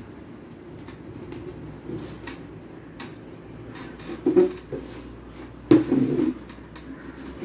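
Fingers mixing rice with curry on a steel plate, making light clicks and scrapes against the metal, along with close chewing sounds. A few louder low sounds come about four and six seconds in, over a steady low hum.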